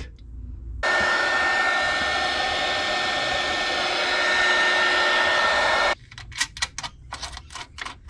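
Electric heat gun blowing steadily with a faint high whine, shrinking red heat-shrink tubing over a battery cable's crimped lug. It switches on about a second in and cuts off abruptly about six seconds in, followed by a few light clicks and taps of handling.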